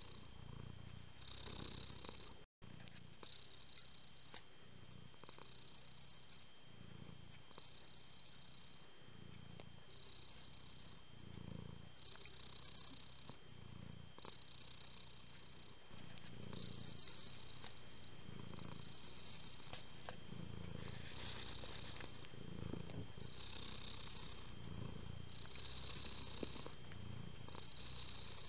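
Domestic cat purring, a soft rumble that swells and fades about every second and a half with each breath.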